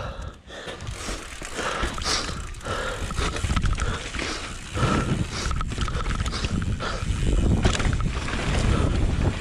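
Mountain bike riding fast down a rocky dirt trail: tyres rumbling and crunching over dirt, rocks and gravel, with the bike rattling over many short knocks and wind buffeting the microphone. It gets louder about halfway through as the bike speeds up.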